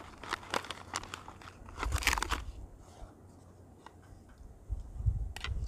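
Freeze-dried food pouch crinkling and rustling as it is handled, with a denser burst of crinkling about two seconds in. Quieter handling follows, with a low bump near the end.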